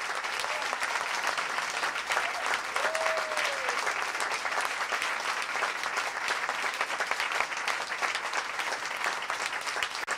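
Audience applauding steadily at the end of a song.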